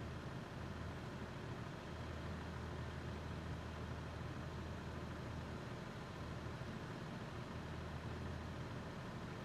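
Heavy truck engine idling steadily, a low even hum.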